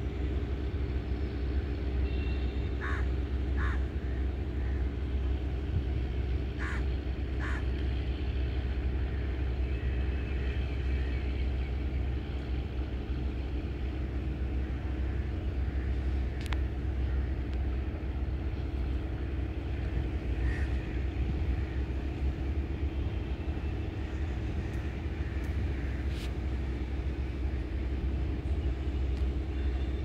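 Steady low engine drone, with crows cawing now and then: a pair of caws about three seconds in, another pair about seven seconds in, and a few more later.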